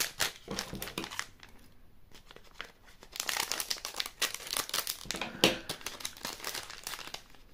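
Thin plastic packet from a candy-and-card gummy box crinkling as it is handled and torn open, the crackling growing busier in the second half with one sharper crack.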